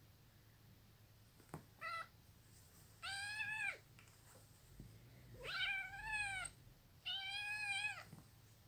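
A cat meows four times during rough play-fighting: a short call, then three longer calls that rise and fall in pitch.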